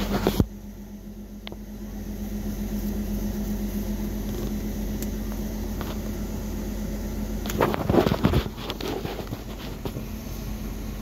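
Steady hum of an idling car's engine and ventilation fan, heard from inside the cabin, with a short burst of rustling and knocks about eight seconds in.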